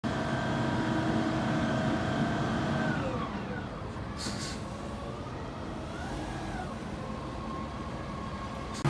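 A vehicle's steady whine falls in pitch as it slows, with a short hiss about four seconds in. The whine then rises again and settles at a steady pitch.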